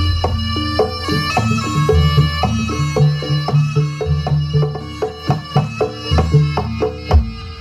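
Javanese jaranan gamelan music: a reedy shawm (slompret) melody over drum strokes and struck metallophone notes, with deep gong tones returning every couple of seconds.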